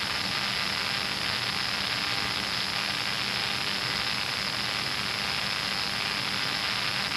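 Steady hiss and drone of a C-130 Hercules airtanker's cockpit in flight, the turboprop engines and airflow blending into an even noise with a faint steady hum.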